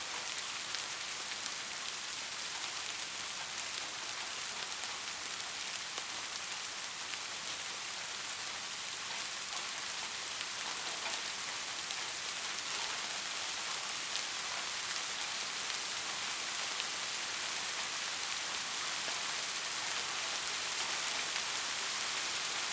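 Steady, rain-like hiss of a white-noise sleep track, with faint scattered ticks like raindrops.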